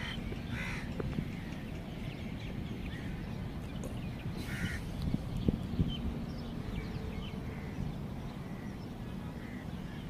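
Outdoor park ambience: a steady low rumble, with birds calling a few times, including a couple of louder calls near the start and about four and a half seconds in.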